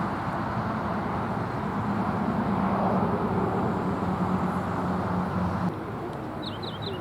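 A steady outdoor rumble with a low hum, which drops away suddenly near the end. A small bird then chirps in quick groups of three or four high, falling notes.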